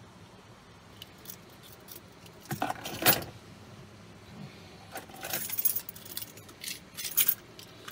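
A bunch of keys, an ignition key with a separate key fob, jangling as they are handled, in three short bursts of clinking, the loudest about three seconds in.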